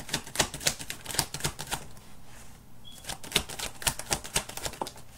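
A deck of tarot cards being shuffled by hand: quick, irregular runs of cards clicking against each other, with a short break about two seconds in.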